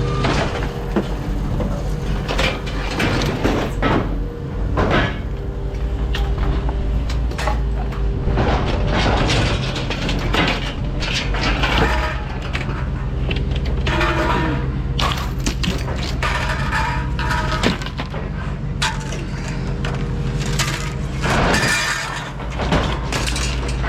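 Scrap metal clattering and crashing again and again as pieces are thrown onto a scrap pile, over the steady hum of an idling engine.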